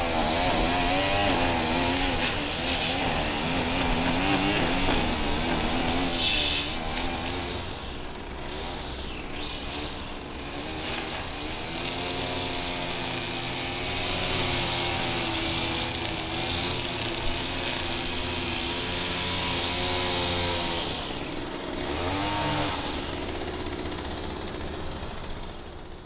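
Petrol-engined grass trimmer (brush cutter) running while cutting grass, its small engine's pitch wavering up and down with throttle and load. The engine eases off about eight seconds in, picks up again around twelve seconds, drops back after twenty with a brief rise near twenty-two, then tails off at the end.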